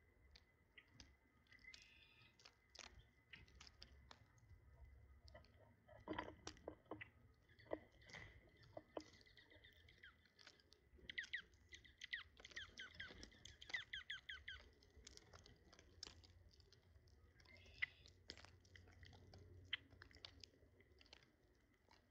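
Birds eating, faint crunching and clicking of beaks on food, with a dense run of quick high ticks in the middle.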